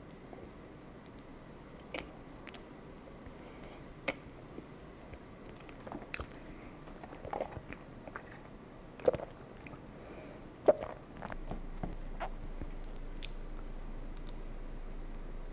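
Close-miked eating sounds: biting and chewing soft chocolate pound cake, with scattered sharp wet clicks and smacks of the mouth, then a bite into a macaron near the end. A steady background hiss steps up about eleven seconds in.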